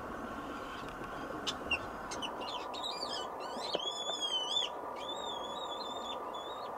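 Caged mink squealing: short high chirps about a second and a half in, then high-pitched wavering squeals and one long drawn-out squeal near the end, over a steady background hum.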